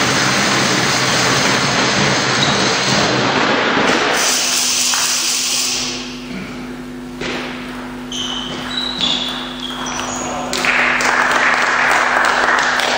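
Table tennis spectators in a sports hall making a loud, even noise of clapping and cheering that dies down after about four seconds. A rally follows, with sharp clicks of the ball and short squeaks. The crowd noise breaks out again about ten and a half seconds in.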